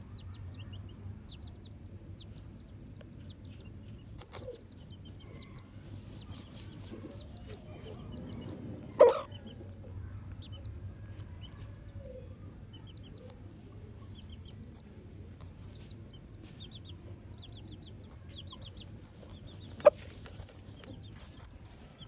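Aseel chicken dust-bathing, giving one loud short cluck about nine seconds in, while small birds chirp in short quick runs in the background. A single sharp click comes near the end.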